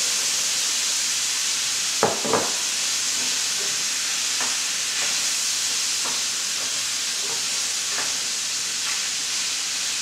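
Chicken thighs, bacon, onion and diced apples sizzling steadily in a stainless steel sauté pan. Two sharp knocks about two seconds in, then lighter taps and scrapes of a wooden spoon as the food is stirred.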